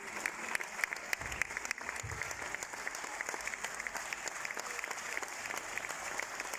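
Audience applauding, a dense steady clapping with single sharp claps standing out above the rest.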